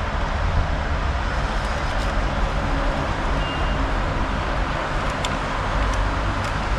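Car driving, with steady engine and road noise.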